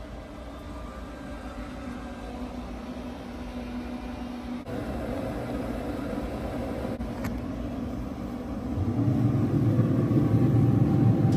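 Pit Boss pellet smoker running, its combustion fan giving a steady hum. It steps up a little about halfway through and gets much louder and lower about nine seconds in.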